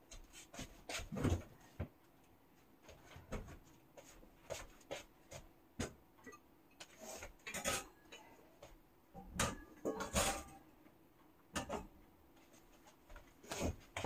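Scattered light clicks, taps and short rustles at irregular intervals, a dozen or so over the stretch, with brief quiet gaps between them.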